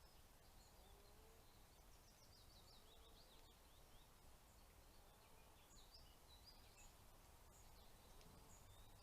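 Faint small birds chirping and twittering, short high notes scattered throughout, with a quick falling run of notes about two seconds in, over a low steady rumble.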